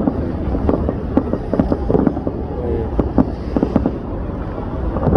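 Fireworks going off: a dense run of irregular sharp pops and crackles over a steady low rumble.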